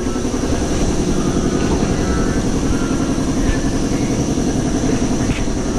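A steady mechanical rumble, even and unbroken.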